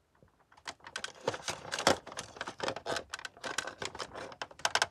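Close handling noise: a rapid, irregular run of clicks, taps and rattles of hard plastic, starting about half a second in.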